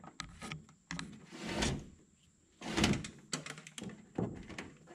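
An insulated wire being pulled and routed through a truck's engine bay, making several short scraping rustles and light knocks as it drags over parts.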